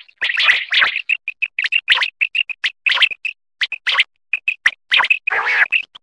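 Common quail calling: a quick run of short, clear whistled notes, about three a second, broken by harsh rasping calls, the longest near the end.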